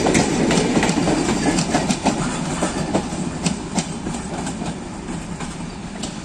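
Wheels of a passenger train of PT INKA coaches clicking over rail joints with a steady rumble, fading as the last coach rolls away.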